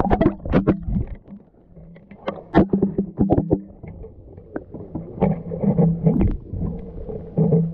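GoPro action camera in its waterproof housing, lowered on a line under the ice: muffled underwater sound with repeated knocks and bumps against the housing over a steady low hum.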